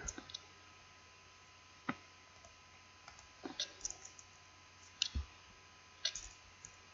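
Computer mouse clicking, a handful of short sharp clicks at irregular intervals, some in quick pairs, over a faint steady hum.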